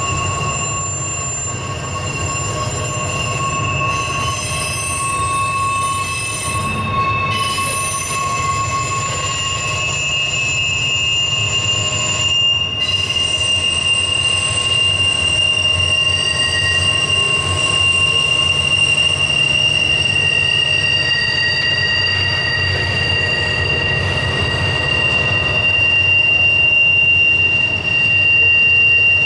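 Double-stack intermodal well cars rolling slowly through a sharp curve, their wheel flanges squealing against the rail in several steady high-pitched tones that shift and change, over a constant low rumble of the wheels.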